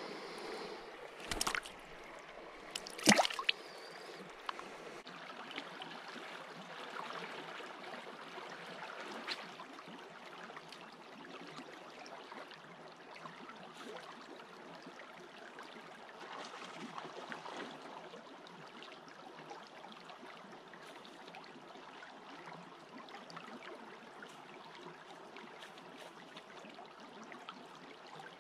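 Shallow creek water running steadily. Two sharp knocks come a second and a half apart near the start, the second one louder.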